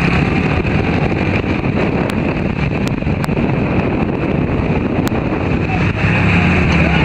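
Wind buffeting the microphone on a moving off-road vehicle, with its engine rumbling underneath and a few sharp knocks. The engine's steady hum comes through more clearly again near the end.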